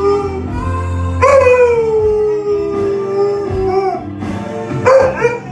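Pit bull howling along to music. One howl tails off at the start, then a long howl begins about a second in, slides slowly down in pitch and ends near four seconds.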